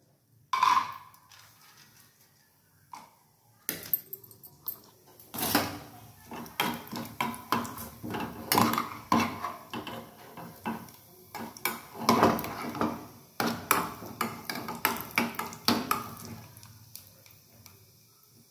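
Steel spoon stirring cashew pieces frying in ghee in a small aluminium pan, clinking and scraping against the pan in an irregular run that dies away near the end. A single sharp clink about half a second in.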